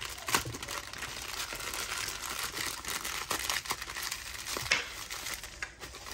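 Thin black plastic bag and clear plastic wrap crinkling and rustling as they are pulled open by hand, with many small sharp crackles.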